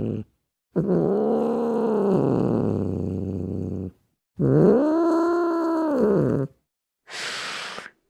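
Asian golden cat calling with long, drawn-out yowls, each rising and then falling in pitch: one ends just as the sound begins, then two more, of about three seconds and two seconds. A short hiss follows near the end.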